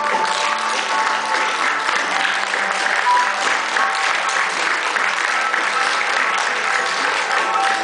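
Many hands clapping, with music playing.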